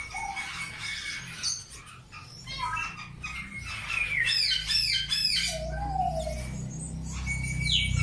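Caged canaries chirping and singing: a thin held whistle, quick trills, then a fast run of repeated rising-and-falling notes, over a low rumble that builds in the second half.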